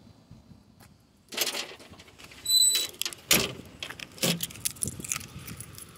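Rustling, clicks and knocks of things being handled, with a brief high squeak about two and a half seconds in.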